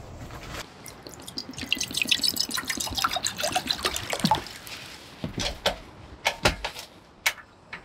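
Water being poured into a vessel, splashing and gurgling for about three seconds, followed by a few separate sharp clicks and knocks.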